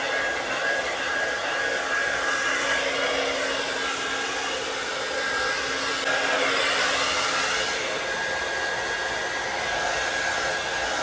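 Handheld electric hair dryer running continuously, a steady rush of air with a steady whine through it. It gets slightly louder and brighter about six seconds in as it is moved around.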